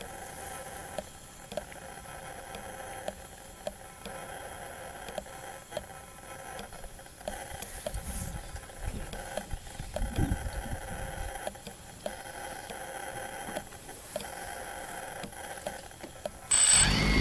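Small drone sitting in grass with a faint steady electronic hum and soft ticks about every half second, with a couple of low rumbles midway. Near the end its rotor motors start up suddenly into a loud whir.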